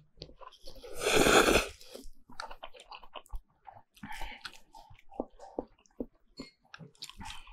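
A person eating thick noodles in beef noodle soup: a loud slurp about a second in, then chewing with many small wet smacks and clicks.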